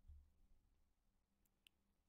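Near silence: room tone, with a faint low thud near the start and a single faint click near the end.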